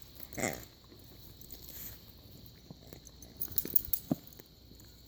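A dog mouths and chews a rubber pig toy. The toy gives one short squeal about half a second in, then there are faint chewing clicks, with a burst of sharper clicks about two-thirds of the way through.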